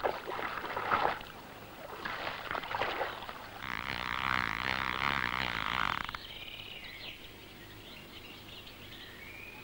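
Small birds singing and calling: three rasping, chattering phrases in the first six seconds, then a few short, thin call notes.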